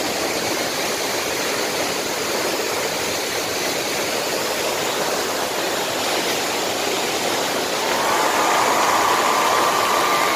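Waterfall: a steady rush of water pouring into its pool. About eight seconds in, the sound gets a little louder and a steady hum joins it.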